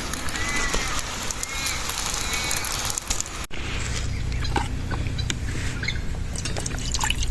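Outdoor background sound with a few short arching chirps in the first half. After an abrupt cut, a steady low hum with scattered clicks.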